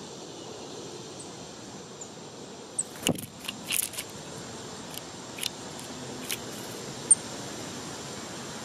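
Small songbirds giving a few brief, very high chip notes, with a quick downward swish and a cluster of sharp clicks about three to four seconds in, over steady background hiss.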